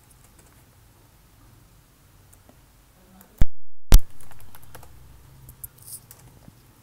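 Computer keyboard typing in faint scattered keystrokes. A little past halfway come two loud, sharp clicks about half a second apart, with a moment of dead silence between them.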